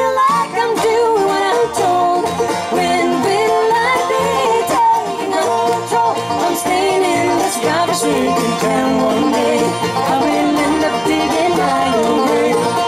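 Live bluegrass band playing with upright bass, acoustic guitar and mandolin.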